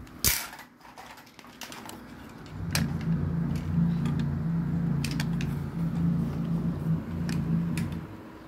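Plastic wheels of a toy bus rolling along a plastic toy track, a steady low rumble from about three seconds in until near the end, with light clicks and knocks of plastic toy pieces.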